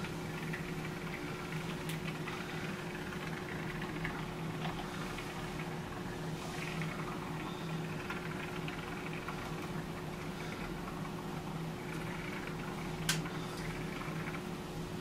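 Soft hiss and sputter of canned expanding spray-foam insulation being sprayed into the gap around a window frame, over a steady low hum in the room. A single sharp click sounds near the end.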